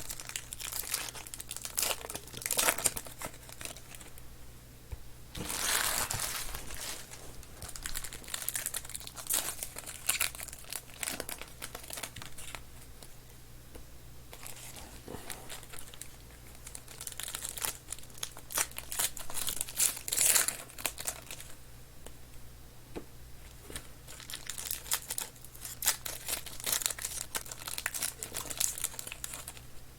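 Trading-card pack wrappers being torn open and crinkled, with cards being handled, in irregular bursts of crinkling that come and go.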